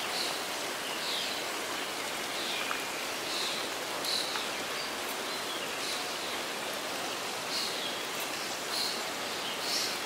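A small waterfall runs steadily into a pond, an even rush of falling water. Over it a bird repeats short high calls that slide downward, every second or so.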